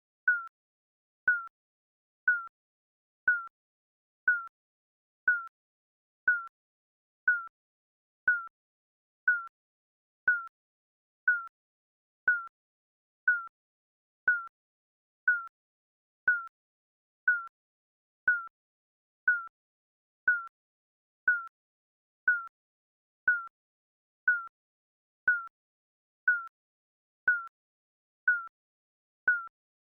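Digital countdown timer beeping: a short, high electronic blip once every second, in an even rhythm.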